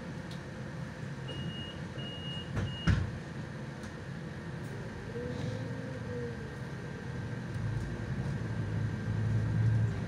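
Interior of a Solaris Urbino 18 articulated city bus with its steady running hum: three short high beeps of the door-closing warning, then a loud knock as the doors shut. A few seconds later the drivetrain note rises and falls, and the low hum grows louder near the end as the bus gets under way.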